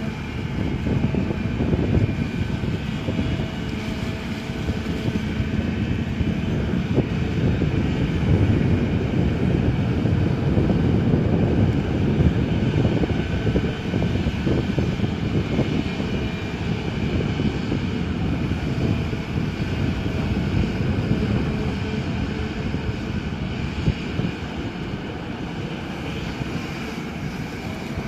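Excavator's diesel engine running steadily, a dense low mechanical noise that holds at about the same level throughout.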